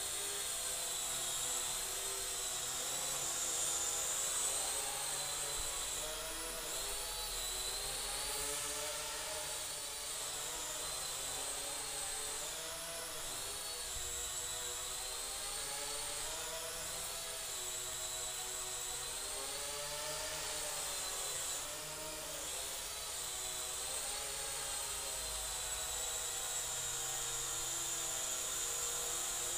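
Small RC VTOL drone-plane's electric motors and propellers whining as it hovers and manoeuvres, the pitch wavering up and down over and over as the throttle corrects.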